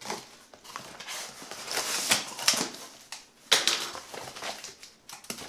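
Cardboard box being cut and pulled open by hand: scraping and rustling of cardboard and packing tape, with a few sharp cracks and tears about two to three and a half seconds in.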